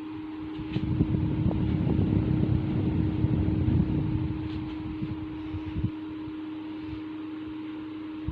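Khind TF-163 16-inch electric table fan running with a steady motor hum. About a second in, a low wind rumble on the microphone, most likely the fan's own airflow, swells for about three and a half seconds and then eases off. A couple of light knocks follow later.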